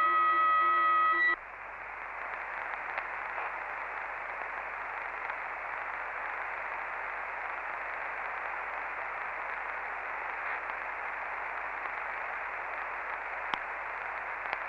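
A Sommerkamp CB radio on the 27.555 MHz channel gives a steady whistle of several held tones, which cuts off about a second and a half in. After that only the receiver's band-limited hiss of an open channel remains, with a faint click near the end.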